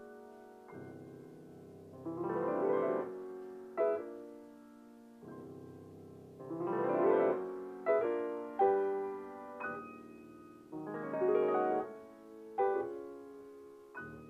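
Piano music: a rising run of notes swells up about every four to five seconds, with struck chords and held notes ringing between them.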